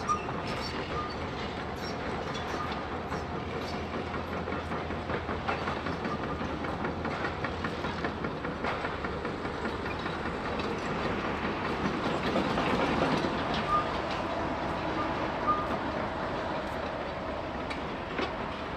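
Construction-site din: machinery running steadily under frequent metallic clanks and knocks, swelling louder for a couple of seconds about two-thirds of the way through.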